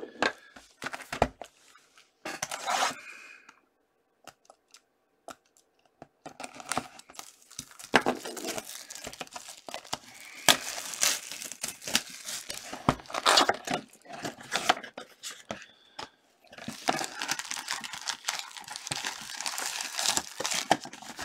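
Packaging of a hockey card box being torn open by hand, then the wrapped card packs crinkling as they are handled and pulled out. A few scattered rustles come first, then about 6 seconds in a long spell of dense tearing and crinkling begins, with a short pause near the end.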